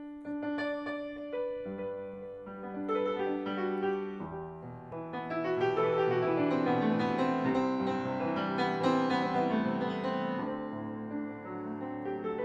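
Antique Steinway & Sons Model A grand piano being played: a flowing passage of sustained notes and chords that swells louder from about five seconds in and eases off near the end.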